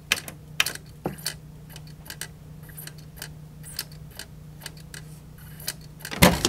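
JVC PC-X560 boombox CD mechanism clicking irregularly as the laser searches and fails to read the disc, over a low steady hum. Near the end comes a louder knock and clatter.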